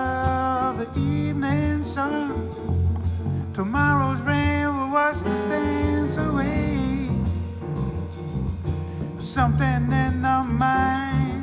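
Live jazz band: a singer's phrases with vibrato on the held notes over piano, electric bass and drum kit with cymbals. The voice drops out for a few seconds in the middle while the band keeps playing.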